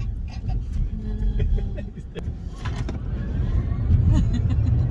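Road and tyre rumble inside the cab of a Rivian R1T electric pickup on the move, growing louder about three seconds in as the truck gathers speed.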